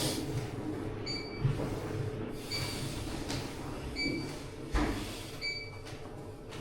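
Machinery running with a steady hum, while a short high electronic beep repeats about every second and a half, with a few scattered knocks.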